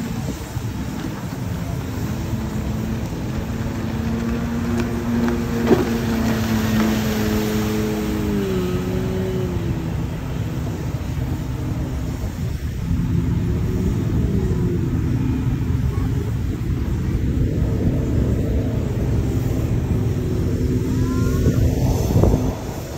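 Shafer Queen tour boat's engine running steadily under way: a low drone with a pitched hum that slides down in pitch a couple of times, over water and wind noise.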